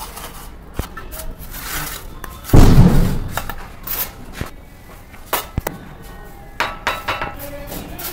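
Bricklayer's steel trowel tapping and clinking against clay bricks and scraping mortar, in scattered sharp knocks. A much louder, heavier thud comes about two and a half seconds in.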